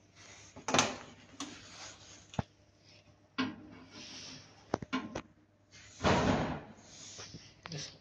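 Hands working parts on a metal machine frame: irregular clicks and knocks from a plastic conduit fitting and an aluminium mount, with rustling, and one louder rustling knock about six seconds in.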